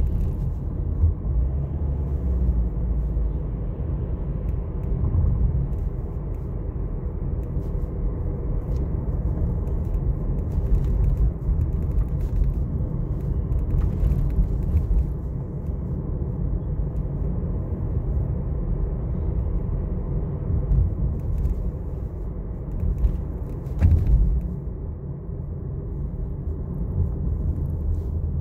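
Steady low rumble of a car driving along a city street, with a short thump near the end.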